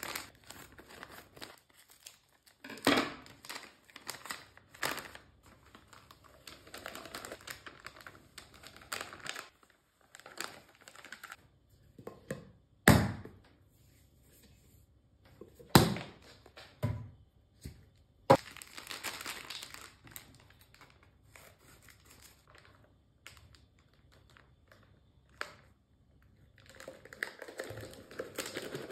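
Hands handling things: bursts of rustling and crinkling, with a few sharp knocks of objects being set down, two of them loudest about a third and halfway through.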